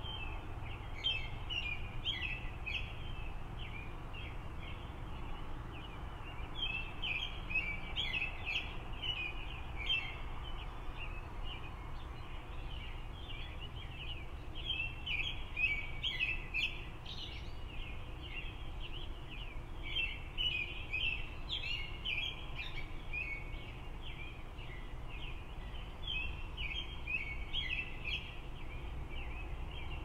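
Songbirds singing in phrases of quick, high notes that recur every few seconds, over a steady low rumble of traffic.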